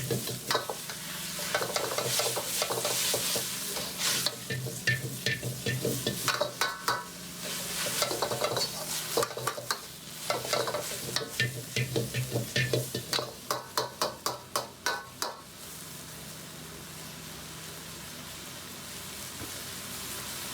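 Water spinach stir-frying in a wok over high heat: the stirring utensil scrapes and clanks against the wok in quick, rhythmic strokes over a sizzle. About three-quarters of the way through the strokes stop, leaving only an even sizzling hiss.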